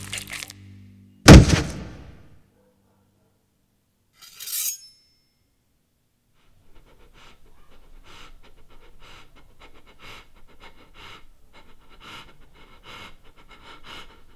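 A loud crash about a second in that rings out and dies away within a second, then a brief high-pitched clink a few seconds later. From about halfway on, a person's quick, shallow panting breaths.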